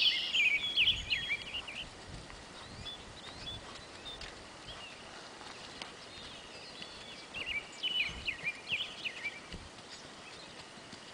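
A songbird singing in quick chirping phrases, in two bouts: one in the first couple of seconds and another around eight seconds in. Under it is a steady outdoor background hiss.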